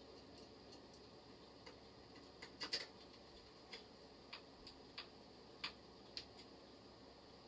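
Faint, light metallic clicks and taps of a screwdriver and small metal parts being handled against a mini wood lathe during assembly. A quick cluster just under three seconds in is the loudest, followed by single ticks a little over half a second apart.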